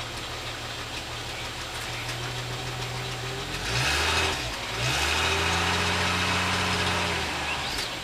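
1962 Ford Fairlane's engine idling, revved up and down about halfway through, then held at a faster, louder run for a few seconds before dropping back near the end.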